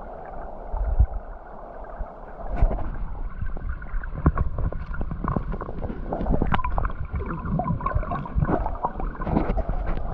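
Muffled river water heard underwater, gurgling and rushing, with frequent knocks and clicks from about two and a half seconds in as the rainbow trout and the hands holding it bump against the submerged camera.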